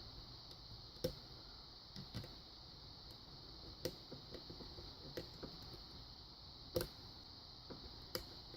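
Faint, irregular small clicks and taps of a hook pick working the pin stacks inside a Kwikset lock cylinder during single-pin picking, over a steady faint hiss.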